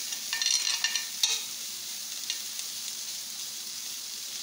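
Machaca (shredded dried beef) with onion and bell pepper sizzling in a stainless steel skillet, stirred with a utensil that scrapes and clicks against the pan for about the first second. After that the sizzle carries on steadily on its own.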